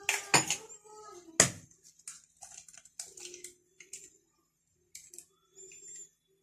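A hen's egg knocked sharply against the rim of a glass bowl to crack it, the loudest knock about a second and a half in, followed by small shell clicks as the egg is broken open and the yolk passed between the shell halves.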